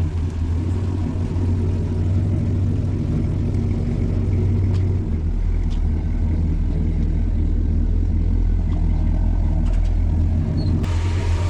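Car engine idling with a deep, steady rumble. Its pitch drops lower about halfway through, and a hiss comes in near the end.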